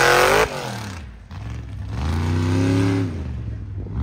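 Mega truck engine revving hard, then cutting off sharply about half a second in; it revs up again, rising and then falling away about three seconds in.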